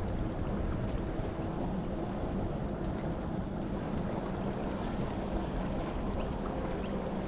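Steady wind rumble on the microphone over small waves lapping at the shoreline, with a faint steady drone underneath.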